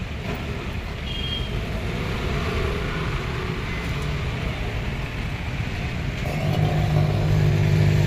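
Microwave oven: a short keypad beep about a second in, then about six seconds in the oven starts running with a loud, steady low hum. The oven is faulty and is sparking and burning inside.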